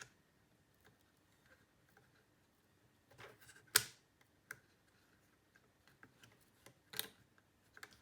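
Light ticks and handling of a laptop-type SO-DIMM RAM module being fitted into its slot on a Mac mini logic board. A short rustle is followed by a sharp click about four seconds in, and another sharp click comes about seven seconds in as the module is pressed home.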